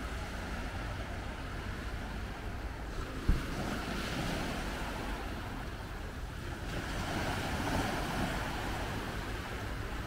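Small sea waves breaking and washing up a sandy shore, swelling twice, with wind rumbling on the microphone; a single sharp knock about three seconds in.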